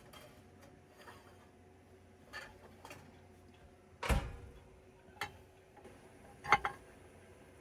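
A few separate knocks and clunks, the loudest about four seconds in and another sharp one near the end, as a hot baking tray is handled at the oven: taken out and set down.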